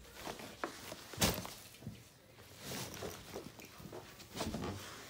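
Footsteps and rustling handling noise from a phone being carried, with irregular soft knocks and one sharper knock about a second in.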